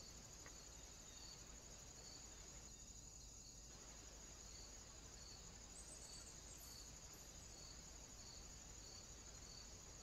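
Near silence: only a faint, steady, high-pitched insect-like chirring with a soft pulse about twice a second.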